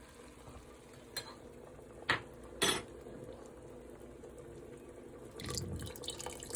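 Kitchen cookware clatter: three sharp clinks in the first three seconds, then a longer clatter near the end, over a steady low hum.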